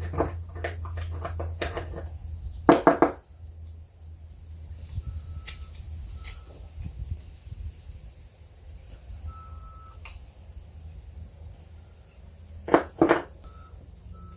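Small clicks and taps of a tool working in the rust- and crud-clogged muffler of a two-stroke string trimmer, with two pairs of sharp knocks, about 3 s in and near the end.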